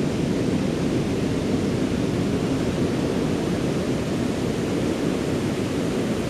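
Ocean surf washing on the shore: a steady, even rushing with no single wave standing out.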